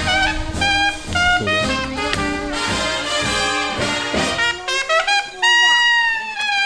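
Background jazz music with a trumpet playing the melody over a band, ending on a long, high held note.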